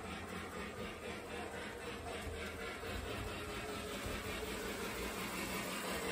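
Lionel O gauge steam locomotive and its train running on tubular three-rail track: a steady mechanical running sound with an even, rhythmic clicking.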